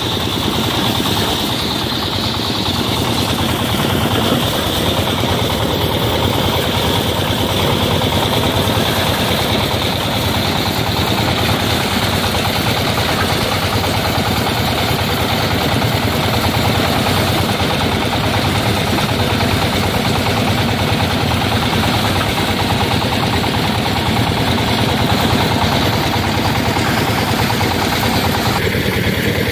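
Mobile soya bean thresher driven by a small single-cylinder diesel engine, running steadily while soya bean plants are fed through it. The engine and threshing drum together make a loud, unbroken mechanical noise.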